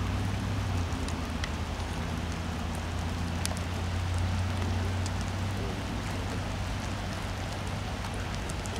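Steady rush of a fast-flowing river, with a low engine hum underneath that fades about five seconds in.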